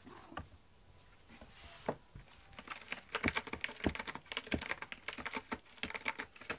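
Cat clawing a corrugated cardboard scratcher: a rapid run of scratchy clicks that starts about two and a half seconds in.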